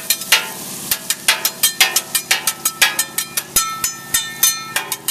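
Metal spatula and fork clacking against a steel flat-top griddle while chopping and turning food, several sharp metallic strikes a second, some with a short ring.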